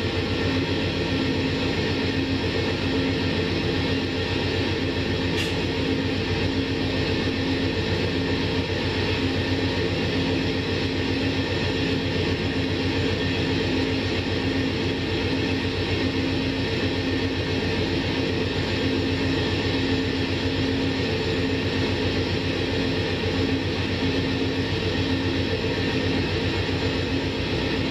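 Amtrak diesel locomotive standing still with its engine idling: a steady low drone with a constant hum that does not change.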